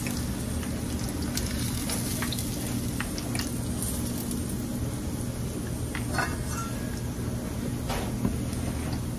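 Chicken pieces frying in a saucepan of hot oil, a steady sizzle full of fine crackling. A few light clicks of metal tongs against the plate are heard now and then.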